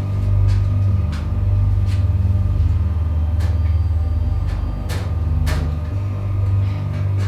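Low, droning scary background music with several sharp knocks through it, the loudest two close together about five seconds in.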